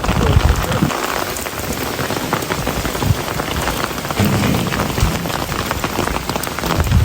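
Heavy rain from an approaching hurricane falling steadily and pattering on surfaces, with low thuds now and then.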